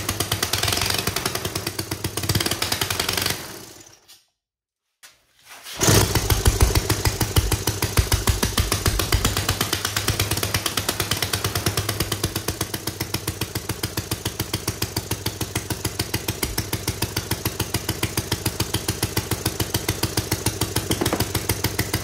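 Homemade metal 3D-printed single-cylinder four-stroke engine running, its firing pulses rapid and evenly spaced. The running dies away about three seconds in, there are about two seconds of silence, and then it is running steadily again. The builder finds it running rich.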